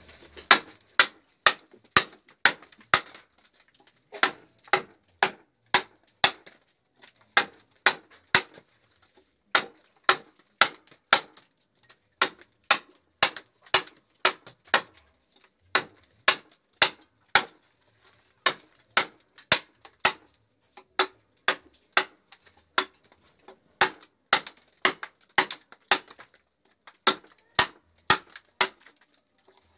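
Wooden mallet striking a hand chisel as it cuts into a log: sharp knocks about two a second, in runs of five to eight blows with short pauses between runs.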